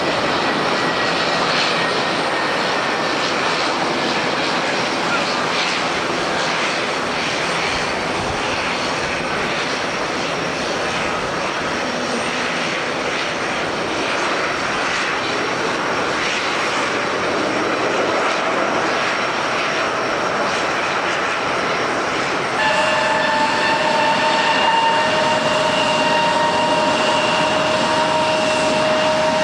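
Airbus A321neo airliner landing in heavy rain and strong gusty wind: a steady jet engine and wind-and-rain rush. About 22 seconds in, the sound changes abruptly to a slightly louder, steady jet engine whine with several held tones from a departing Airbus A320neo.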